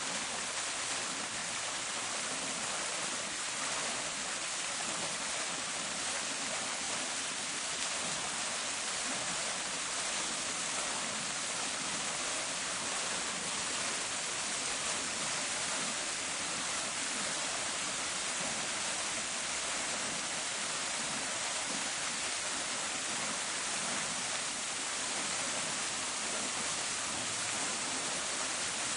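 Park fountain's water splashing and falling in a steady, even rush.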